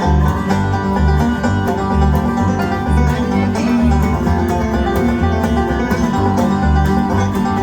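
Bluegrass band playing live without vocals: quick banjo picking over strummed guitar and a steady bouncing bass line.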